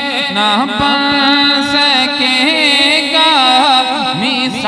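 A man singing a naat in Urdu devotional style, drawing out long, ornamented notes that slide up and down in pitch.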